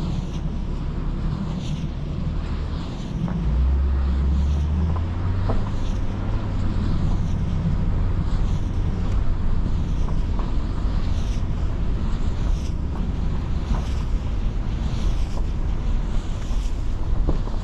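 Car driving, with steady engine and road noise and wind on the microphone; the low engine note shifts about three and a half seconds in. A faint high swish repeats about every second and a half.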